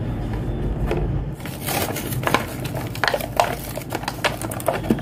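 Stiff clear plastic blister packaging being pulled and peeled off a toy's cardboard backing card: irregular crackles and clicks of the plastic, growing busier about a second and a half in.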